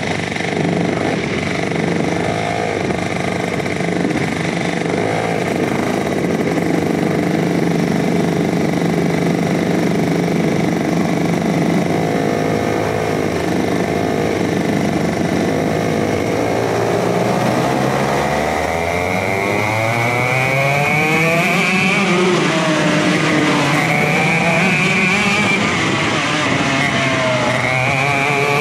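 Rok GP Senior two-stroke kart engines running at low, uneven revs, then from about 18 seconds in revving hard, with several engines rising and falling in pitch across one another as the karts accelerate.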